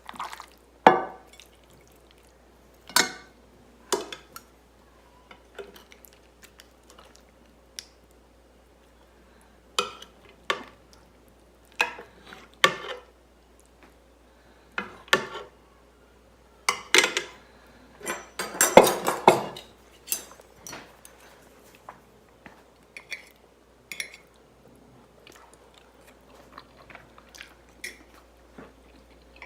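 Fork clinking and scraping on a plate in irregular, separate strikes, busiest a little past the middle, with chewing between them as the pasta and chicken are tasted.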